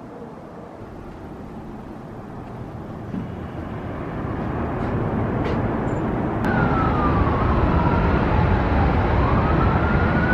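A rush of wind and city traffic noise that grows steadily louder, with an emergency-vehicle siren in the streets below starting about six seconds in: one slow wail that falls in pitch and then rises again.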